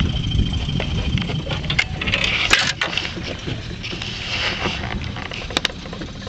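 A gaffed fish being brought aboard and handled on a small boat's deck: scattered knocks and clicks with a brief rush of noise about two seconds in, over steady wind and boat rumble.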